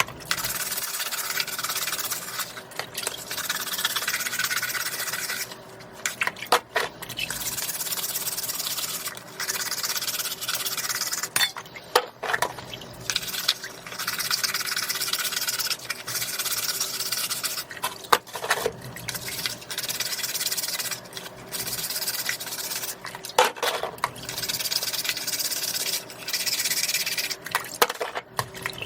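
Scallops being wiped: long rubbing strokes of about four to five seconds each, broken by short pauses with sharp clicks or knocks.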